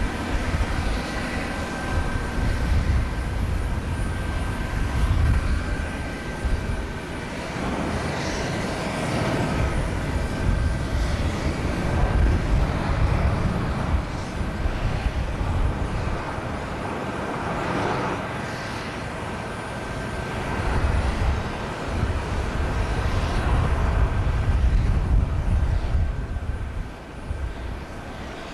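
Jet airliner engines running: a steady high whine over a low rumble that swells and fades.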